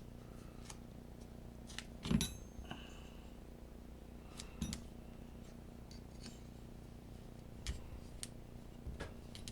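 Small clicks and taps of tools and small metal parts being handled on a workbench, with one louder knock about two seconds in that rings briefly.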